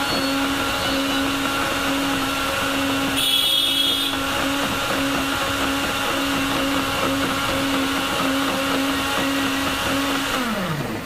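Electric countertop blender running steadily as it blends a full jar of date shake. Near the end it is switched off and the motor's hum falls in pitch as it spins down.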